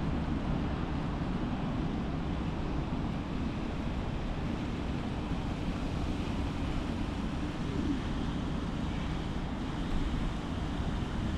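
Steady outdoor background noise: a low rumble with an even hiss over it, with no single event standing out.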